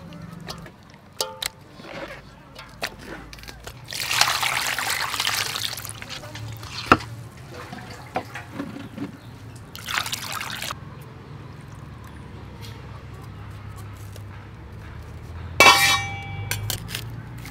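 Water pouring and splashing into a metal bowl of raw cuttlefish as they are rinsed, in two bursts, the first about two seconds long. Scattered clicks and knocks of handling run between them, with a brief ringing clatter near the end.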